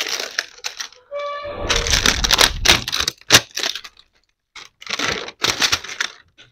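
Plastic wrapping being peeled and crinkled off a spool of kite thread, in crackling bursts with a brief squeak about a second in and a sharp snap about three seconds in.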